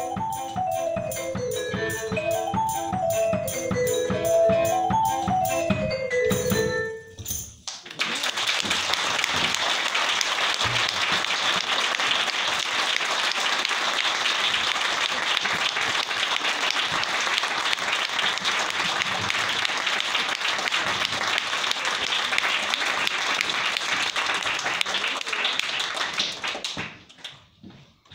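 Music with a quick, repeating rising-and-falling melody that cuts off about seven seconds in, followed by steady applause that fades out near the end.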